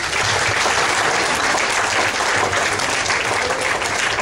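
A room of guests applauding steadily at the end of a speech.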